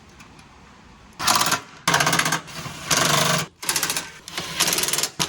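Handheld power tool turning a socket to drive a bolt home, run in about five short bursts of fast rattling with a motor hum under it, starting about a second in.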